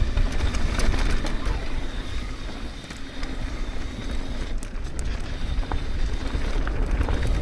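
Mountain bike riding downhill on dirt: wind buffeting the microphone as a low rumble, with tyre noise and scattered clicks and rattles from the bike.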